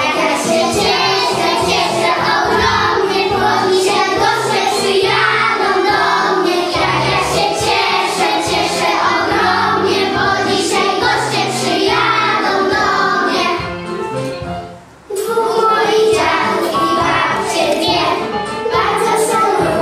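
A class of young children singing a Polish song together over instrumental accompaniment. The sound dips and breaks off briefly about fourteen seconds in, then the singing starts again.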